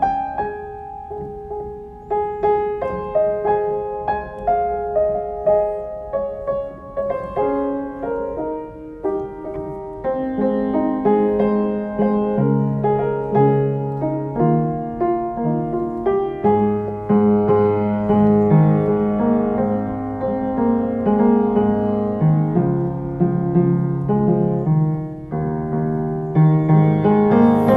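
Solo piano playing a slow prelude. A melody over light accompaniment fills out about a third of the way in, with deeper bass notes joining and the playing growing fuller toward the end.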